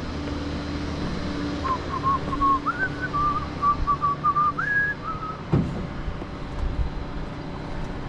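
A man whistling a short tune of quick, stepping notes, over a steady low vehicle hum. A brief thump follows just after the tune ends.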